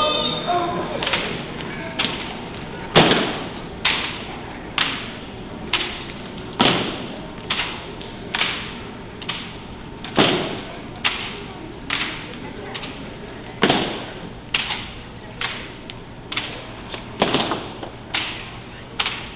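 A rifle drill team performing a routine: a steady cadence of sharp slaps and thumps from the rifles and the drillers' boots, a little more than one a second, with every fourth strike louder. Each strike trails off in a short echo around a large tiled hall.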